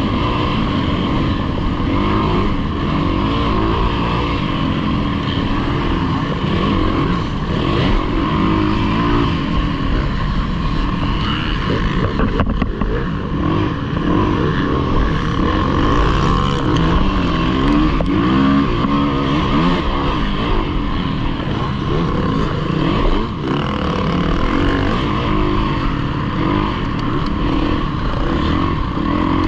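Dirt bike engine ridden hard in a race, revving up and down over and over with the throttle and gear changes, with other dirt bikes running close by.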